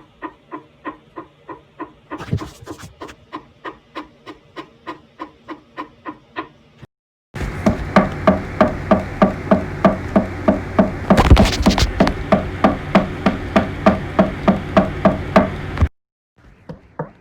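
Steady knocking, about three knocks a second, put through a voice changer effect that gives each knock a pitched, ringing tone. It cuts off briefly about seven seconds in and comes back much louder, with one louder noisy hit partway through. It stops again near the end and resumes more quietly.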